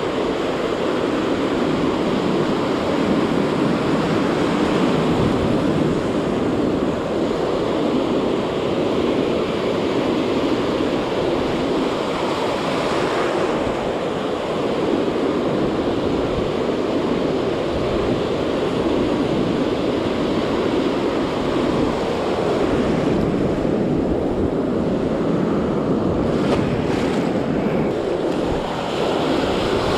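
Ocean surf breaking and washing in as a steady rush, with wind on the microphone.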